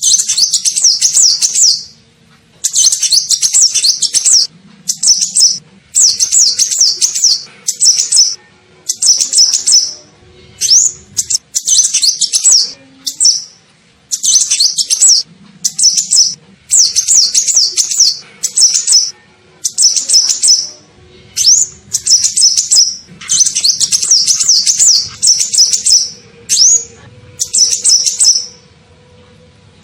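Olive-backed sunbird (kolibri ninja) song played as a bird-lure recording: loud, high, fast twittering phrases about a second long, repeated with short pauses, and a few single quick rising notes between them.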